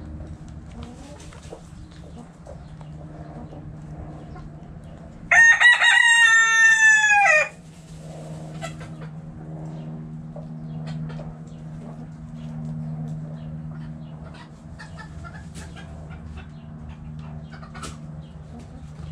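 A rooster crows once, about two seconds long and starting about five seconds in, its pitch dropping at the end. Hens cluck softly around it over a steady low hum.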